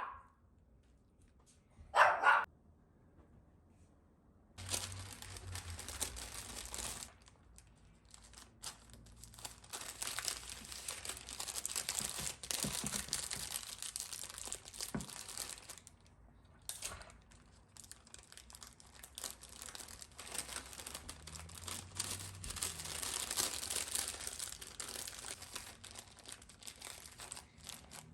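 A dog barks once about two seconds in. Then comes a long run of paper crinkling and rustling, with a short pause in the middle, like sheets of paper being folded and handled.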